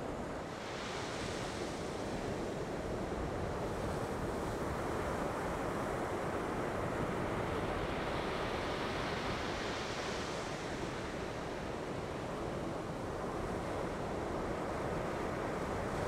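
Ocean surf breaking and washing up the beach, a steady rush, with the hiss of the wash swelling about a second in and again around eight to ten seconds in.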